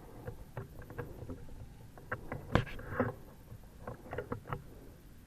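A scattered series of small clicks and light knocks, like gear being handled, the sharpest about two and a half seconds in and a quick cluster near the end.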